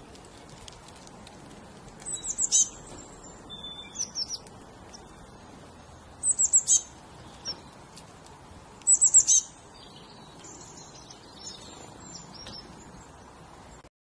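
Small songbird chirping in three quick runs of four or five high, falling notes, about 2, 6 and 9 seconds in, with softer single chirps between.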